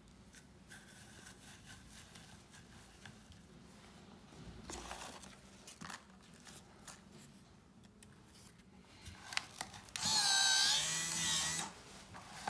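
Electric slim cigarette-filling machine running for under two seconds near the end, its motor whine wavering up and down in pitch as the slider pushes tobacco into a slim tube. Before it come faint rustles and clicks of tubes being handled.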